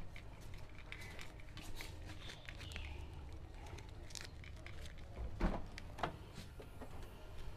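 Quiet handling sounds with a few faint clicks, then a louder latch click about two-thirds of the way through as the tailgate of a Toyota Avanza is released and lifted open.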